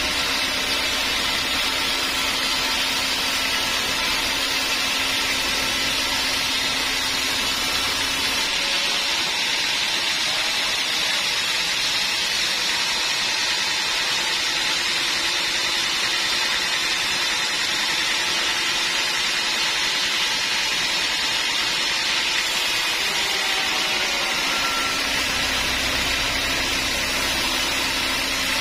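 Sawmill machinery running with a steady, loud mechanical noise. A low hum underneath drops away about a third of the way in and comes back near the end.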